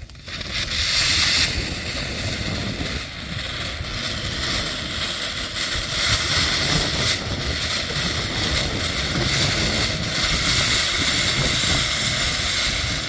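A ground firework, such as a fountain, spraying sparks with a loud, steady hiss that swells slightly and lasts over ten seconds.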